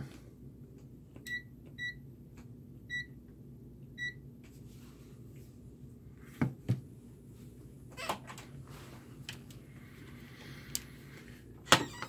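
Key beeps from a ZOYI ZT-702S handheld multimeter as its buttons are pressed: four short, high beeps over about three seconds. A few light clicks and knocks follow later.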